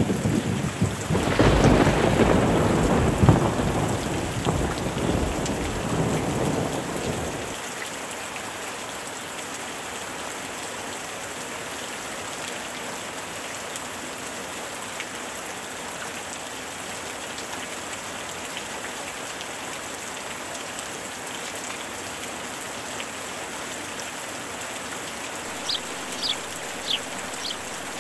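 Steady rain falling on pool water, with a rumble of thunder for the first seven seconds or so that cuts off fairly suddenly. A few short high chirps come near the end.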